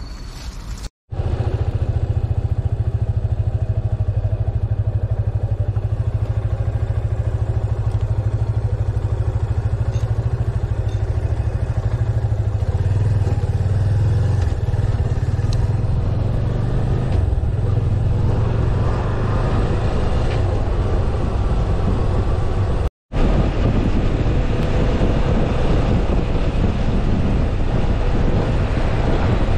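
Yamaha FZS25 motorcycle's single-cylinder engine running steadily while riding on the road, mixed with wind and tyre noise. Two brief dropouts to silence break it, about a second in and about three-quarters of the way through.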